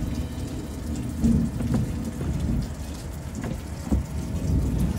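Continuous low rumbling noise with a few short, light knocks of a wooden window sash being shifted in its frame.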